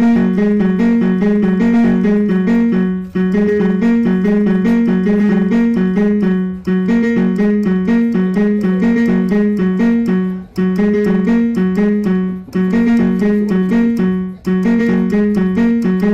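Background music led by a keyboard, playing a quick repeating figure of notes, with short breaks every few seconds.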